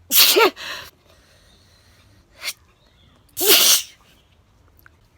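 A woman sneezing twice, loudly: a voiced, falling "a-choo" burst right at the start with a shorter trailing tail, then a second sneeze about three seconds later. A brief sharp breath comes between them.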